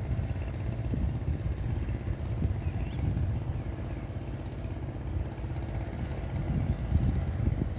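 Wind buffeting the microphone: a low, gusty rumble that swells and eases, with a faint steady hum underneath.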